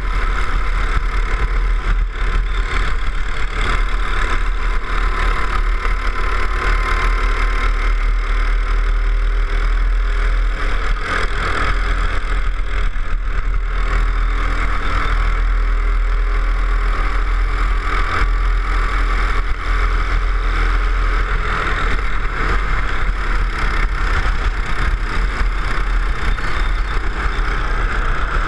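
Go-kart engine running at speed on a lap, its pitch rising and falling with the throttle through the corners, over a heavy steady low rumble on the kart-mounted camera.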